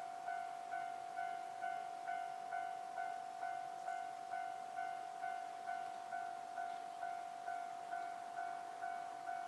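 Japanese railway level crossing warning bell ringing steadily at about two strikes a second.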